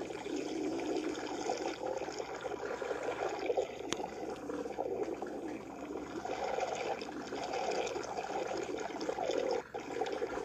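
Stomach gurgling and growling: a continuous wet, churning rumble with crackles, and a single sharp click about four seconds in.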